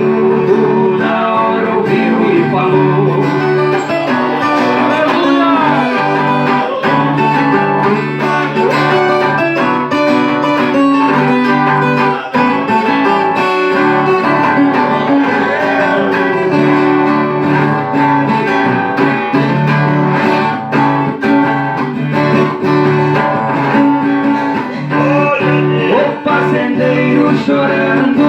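Acoustic guitar (violão) and viola caipira playing an instrumental passage, a plucked melody over held chords in Brazilian country style.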